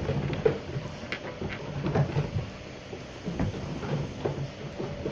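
Irregular knocks and clatter on the wooden floorboards and pens of a shearing shed as lambs move about on the boards.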